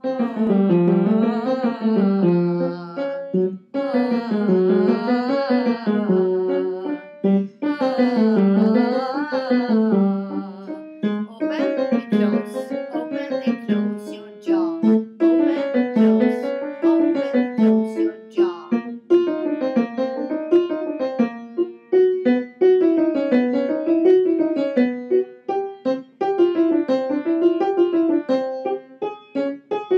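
Piano playing vocal warm-up scales, the notes running up and down in repeated patterns of a few seconds each, with a woman's voice singing the scales along with it.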